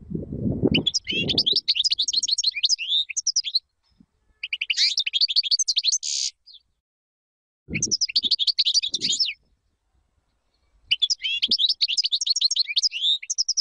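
European goldfinch singing: four phrases of fast twittering and trilling notes, one ending in a short harsh buzzy note about six seconds in. Low muffled thumps sound under the song at the start and again about eight seconds in.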